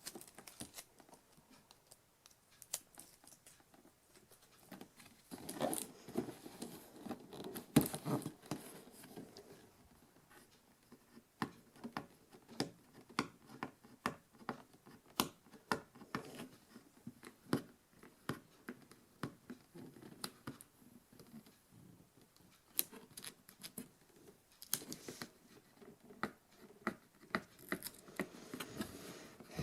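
Scissors snipping repeatedly at packaging, many short sharp clicks about one to two a second, with denser stretches of handling noise near the start and the end.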